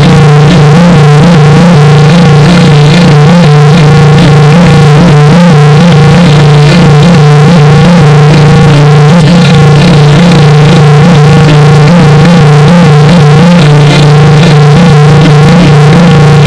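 Heavily layered, clipped synthesizer-like audio at full loudness: a steady low drone under wavering, wobbling higher tones, typical of a pitch-shifted "G major" sound-effect edit. It cuts off abruptly at the end.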